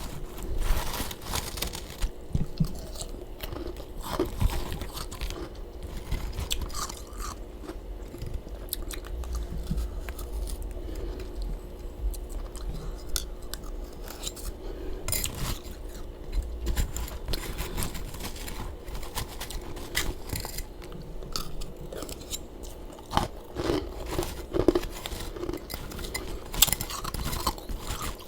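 Close-up chewing and crunching of freezer frost: irregular, crisp crunches as powdery humidifier freezer frost is bitten and chewed.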